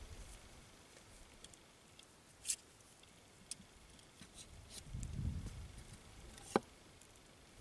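Faint clicks and light scrapes of a metal caliper being worked into shot holes in a wooden board to measure how deep the pellets went, with a soft low rumble about five seconds in and one sharp click near the end.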